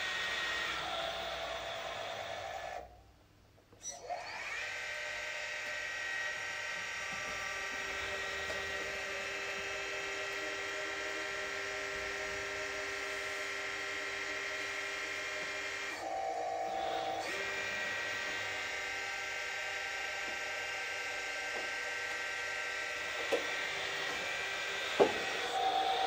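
Radio-controlled Volvo articulated dump truck model whining steadily as its bed tips up to dump the load and comes back down. The whine drops out briefly near the start and changes partway through, and two short knocks come near the end.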